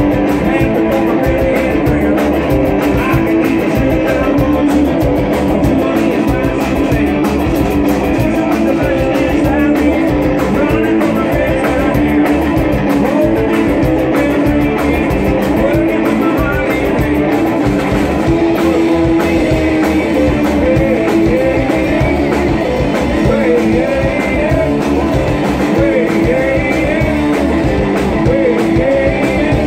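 Live band playing: electric guitar, upright double bass and drum kit, with a steady driving beat.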